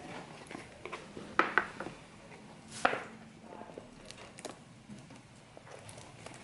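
Small cardboard box being opened and handled: the lid coming off and the paper insert being lifted, with a few sharp taps and a brief scrape about three seconds in.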